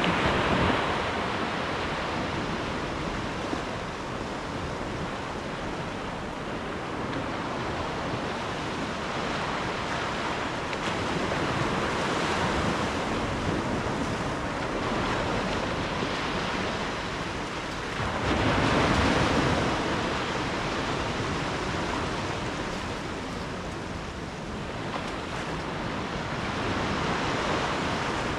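Ocean waves breaking and washing ashore in a continuous surf that swells and fades every several seconds, with one louder wave about two-thirds of the way through.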